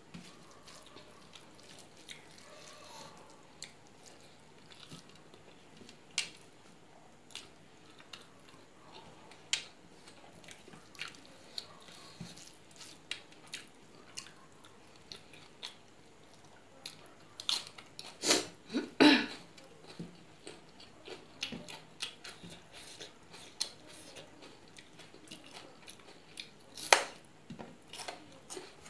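Close-up eating by hand: chewing with soft mouth clicks and wet smacks at irregular intervals. A few louder ones cluster about two-thirds of the way through, and one sharp click comes near the end.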